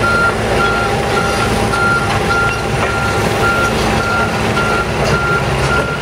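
Backup alarm on heavy construction machinery beeping steadily, a little under two beeps a second, over the low rumble of the machinery's engines running.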